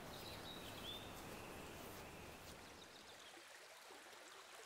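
Faint woodland ambience: a low, even hiss with a brief high bird call near the start. It grows quieter about three seconds in.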